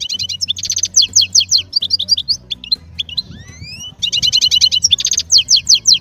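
A songbird singing: fast trills of quickly repeated high notes, mixed with chirps and rising whistled notes, in a dense and continuous song.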